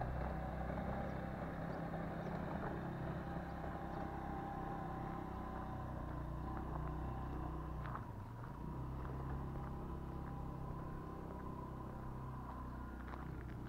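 Automatic ATV engine running steadily at low revs, its pitch shifting slightly, with a few light clicks and rattles.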